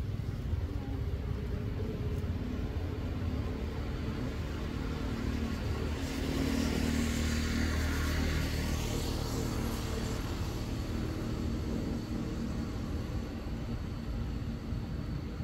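A motor vehicle passing, its engine growing louder to a peak about halfway through and then fading, over a steady low rumble.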